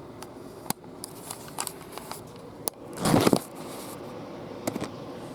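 Sharp plastic clicks of a Rubik's Cube being turned by hand, at irregular intervals, with a louder rustling bump about three seconds in.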